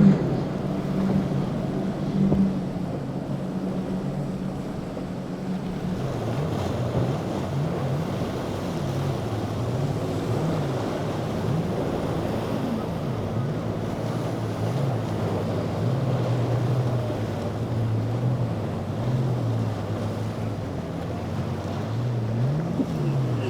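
Motorboat engines running through the inlet, their pitch rising and falling over and over as the boats ride the waves, with wind on the microphone and the wash of surf.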